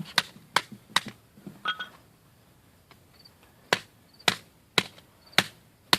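A hammer striking a phone, about eight sharp knocks, a few in quick succession, then a pause of about two seconds, then more.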